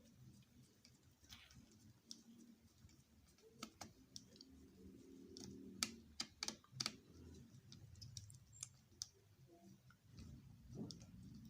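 Near silence broken by scattered small clicks and taps, bunched together around the middle, over a faint low hum.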